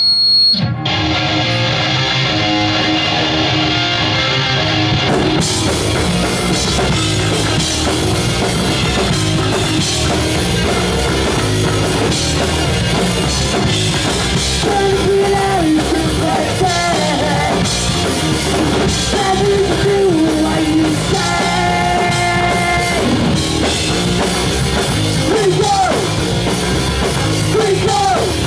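Punk rock band playing live through a PA: distorted electric guitars and a drum kit, filling out about five seconds in, with sung vocals coming in about halfway through.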